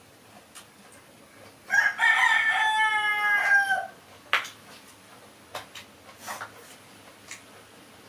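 A rooster crowing once, a single call of about two seconds that sinks slightly in pitch at the end. A sharp click follows just after, with a few fainter clicks later.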